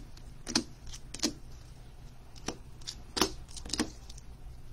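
Plastic-cased trading cards being set down one after another on a tabletop: about five light clicks and taps at uneven intervals.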